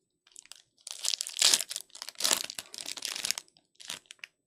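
Wrapper of a Panini Prestige football card pack torn open and crinkled in the hands, in rustling bursts with a short final crinkle near the end.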